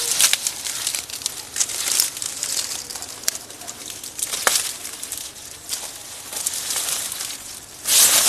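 Stiff pineapple leaves rustling and crackling as they are brushed and pushed aside while pineapples are picked, with a few sharp snaps along the way. There is a loud burst of rustling near the end.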